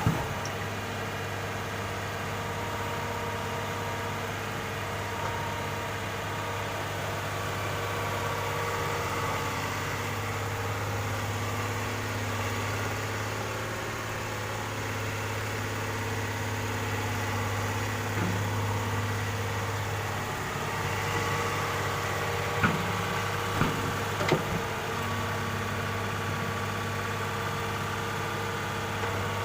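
Excavator's engine running steadily, with a few short sharp knocks about three-quarters of the way through.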